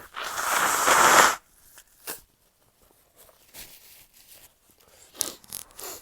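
A stifled sneeze, one of a sneezing fit: a loud burst of air forced out against a closed mouth and nose, lasting about a second. It is followed by a few short, quieter breathy sounds near the end.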